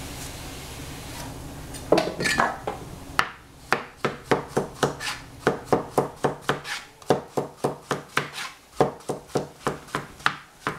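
Cleaver chopping zucchini and squash on a plastic cutting board: a few irregular knocks, then from about three seconds in a steady run of sharp chops, about three a second, each blade stroke hitting the board.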